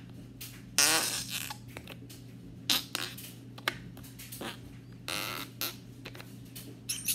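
Galaxy slime being squeezed and worked in the hands, letting out a few short squelching noises, the longest and loudest about a second in.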